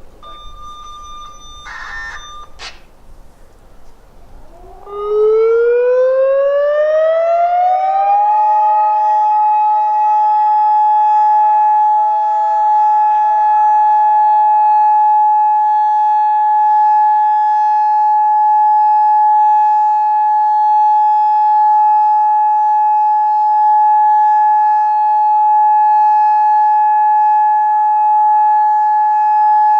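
Federal Signal Modulator 3012 outdoor warning siren starting up for a scheduled test: about four and a half seconds in its pitch rises for about three seconds, then it holds one steady tone. Before it starts, a short burst of noise and a click.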